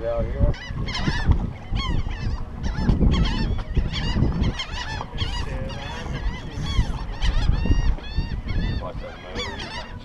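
A flock of seabirds calling over and over around the boat, many short squawking calls overlapping, over a low uneven rumble.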